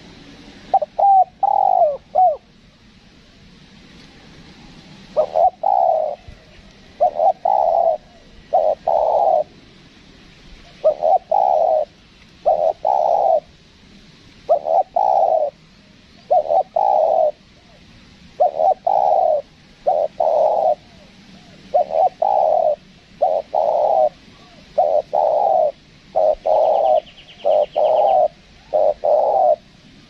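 Spotted dove cooing: a long series of low, throaty coos, about one a second in short groups, after a brief cluster of quicker notes near the start.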